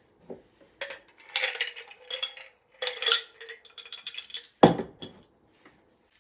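Dishes and cutlery clinking and clattering in several short runs, then one heavier knock of something set down about four and a half seconds in.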